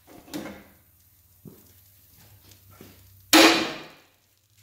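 One loud metal clang about three seconds in, ringing briefly as it fades, from the old steel pickup bumper being knocked loose after being cut with a torch. A few lighter knocks come before it.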